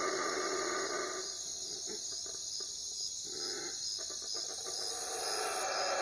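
Crickets chirping in a steady, evenly repeating pulse over a soft hiss of night ambience. The hiss drops away in the middle and swells again near the end.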